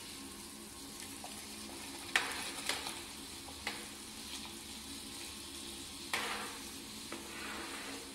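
Semolina frying and sizzling in a pan as hot sugar syrup is poured in and stirred, with sharp spattering crackles about two seconds in and again about six seconds in, over a low steady hum.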